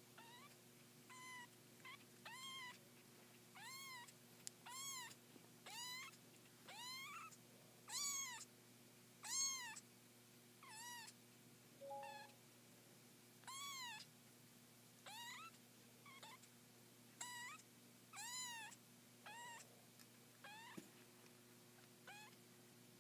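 Three-week-old domestic kittens mewing: short, high-pitched mews, each rising then falling in pitch, repeated about once a second.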